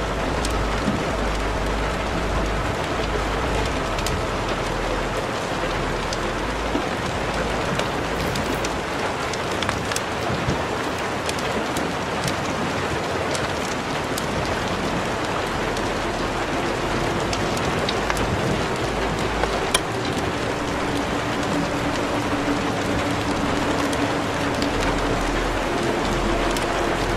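A steady rain-like hiss with scattered crackling clicks. Faint held musical tones sit underneath.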